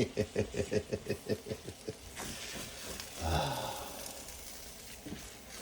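A person's rapid, falling run of laughter for about two seconds, then a short low voiced sound. Under it, eggs frying in a skillet give a faint, steady sizzle.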